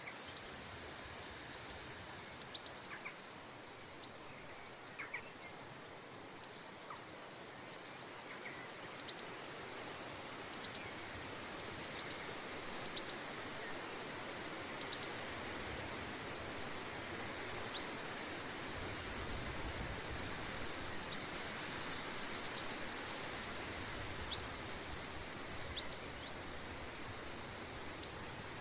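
Outdoor ambience: a steady, even background hiss with scattered short, high chirps from small birds calling.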